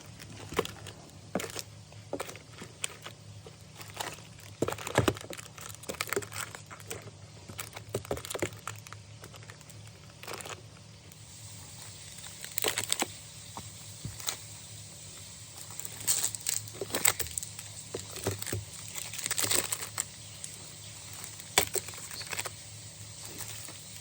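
Plastic biscuit and chip packets crinkling and rustling as they are handled and set in place one after another, with irregular sharp taps and clicks.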